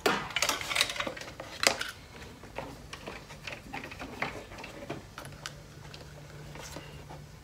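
Irregular light metallic clicks and clatter, densest in the first two seconds and sparser after, with a faint steady low hum coming in about five seconds in.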